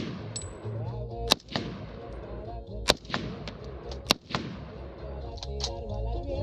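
AR-47 rifle (an AR-pattern rifle chambered in 7.62x39) firing single shots, three loud cracks spaced a little over a second apart, each with a short echo, plus a few fainter reports. Background music plays under the shots.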